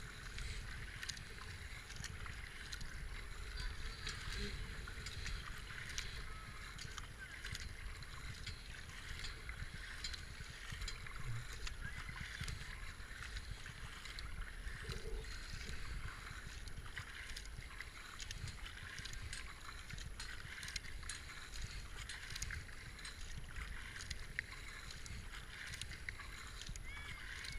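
Double-bladed kayak paddle steadily dipping and splashing into calm river water, with small drips and trickles throughout over a low steady rumble.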